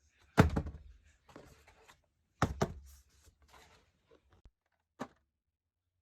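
Hard objects being handled and set down: two solid thunks about two seconds apart, each followed by light rattling, then a single sharp click near the end.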